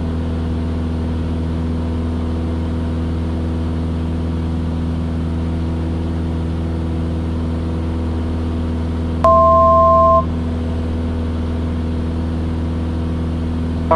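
Steady drone of a Cessna 172S's four-cylinder Lycoming engine and propeller, heard inside the cabin. About nine seconds in, a loud two-tone electronic beep sounds for about a second, then stops.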